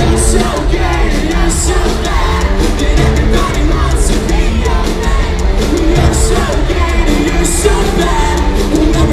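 Pop-punk rock band playing live in a large arena: a singer's voice over loud bass and drums, with repeated cymbal crashes.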